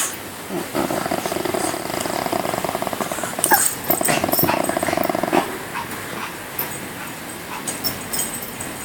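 Elderly dog growling when provoked, in two long growls: the first lasts about two and a half seconds, the second about a second and a half. After that it goes quieter, with a few faint clicks.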